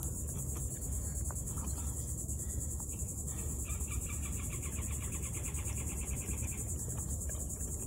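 Steady, high-pitched chorus of trilling insects. A quicker, evenly ticking trill joins it for a few seconds in the middle.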